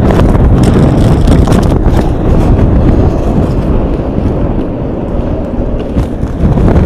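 Strong wind buffeting the microphone near a large tornado, a loud steady rush with scattered knocks as the camera is picked up and moved. The wind eases somewhat about four seconds in, then picks up again near the end.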